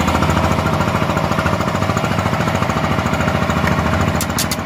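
A fishing boat's engine running with a rapid, even knocking pulse, a few short high ticks near the end.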